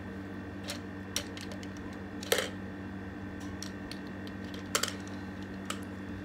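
Scattered light clicks and taps of makeup brushes and cosmetics being handled, the loudest a little over two seconds in and a quick double click near the end, over a steady low electrical hum.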